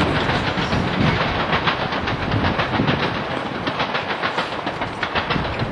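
Crowd applauding: dense, loud clapping that slowly dies down.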